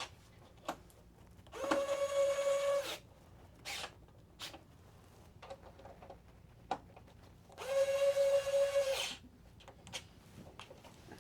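Small electric screwdriver driving two screws into a PlayStation 5's casing: two steady whining runs of about a second each, several seconds apart, with light clicks of handling between them.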